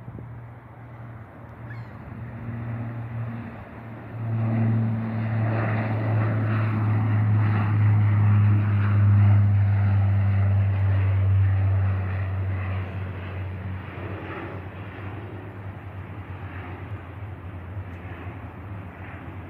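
A De Havilland Dash 8-400 twin-turboprop airliner climbs out past overhead with a low, steady propeller drone. The drone swells sharply about four seconds in, is loudest in the middle, then fades as the plane draws away.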